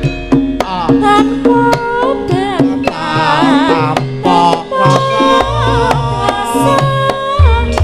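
Javanese gamelan music in Sragenan style: struck bronze metallophones and a sharp, busy hand-drum (kendang) pattern under a wavering, ornamented vocal line.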